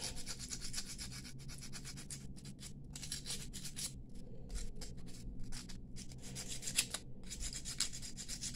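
Small hand file rubbing back and forth on the cut ends of a brass bangle in quick, short, hissing strokes with brief pauses, smoothing the edges so they are not sharp.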